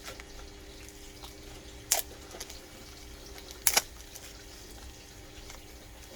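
Two sharp clicks, one about two seconds in and a quick double click near four seconds, over a steady low hum.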